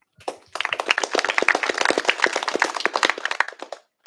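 Small audience applauding briefly: a dense patter of hand claps that starts about half a second in and dies away near the end.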